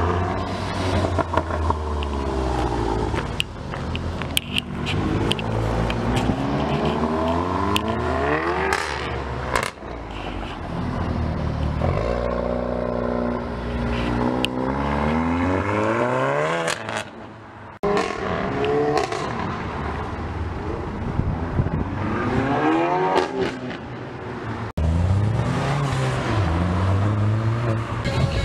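Modified hot hatchbacks, among them a SEAT Leon Cupra, an Audi S3 and a Vauxhall Corsa VXR, accelerating away one after another, the engine note rising in pitch and dropping back again and again as they shift up. There are a few sharp crackles early on, and the sound cuts abruptly from one car to the next twice.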